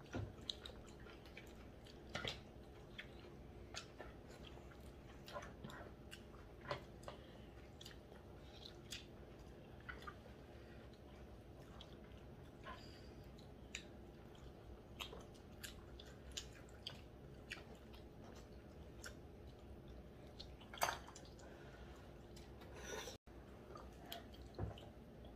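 Faint chewing and gnawing of people eating braised pork back bones, with scattered small clicks and smacks from mouths, chopsticks and dishes; one louder click comes about three-quarters of the way through.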